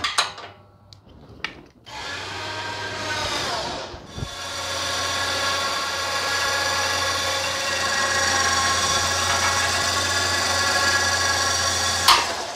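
Husqvarna riding mower running with its deck blades engaged, making a loud steady mechanical racket with a high whine from the deck spindles. It spins up about two seconds in and stops abruptly near the end. The noisy spindles are ruined, which the owner blames on worn, out-of-balance blades.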